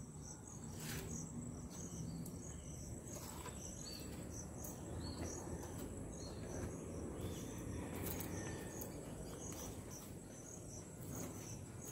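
Faint outdoor ambience of crickets chirping: short high chirps repeating irregularly several times a second over a low steady hum, with a few faint knocks.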